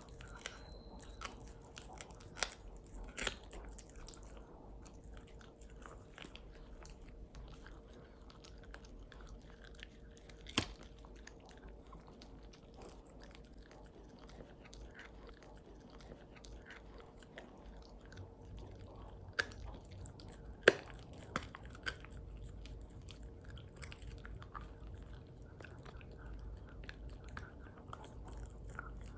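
Norwich terrier gnawing and chewing a bully stick: quiet, continuous chewing broken by a handful of sharp cracks as her teeth bite into the stick, the loudest about two thirds of the way in.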